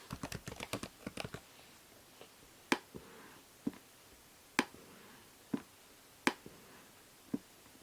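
Typing on a computer keyboard: a quick run of keystrokes in the first second and a half, then single key presses about a second apart. A faint steady hiss of binaural-microphone noise lies under the keystrokes.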